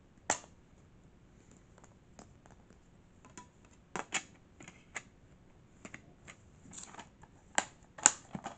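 Plastic DVD case being opened and handled: scattered sharp clicks and taps of the case and disc, the loudest near the end.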